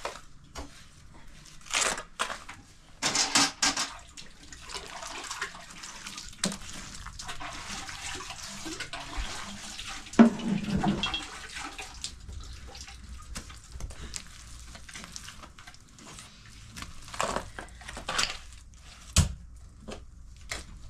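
Water running steadily for much of the stretch, with several loud knocks and splashes scattered through it.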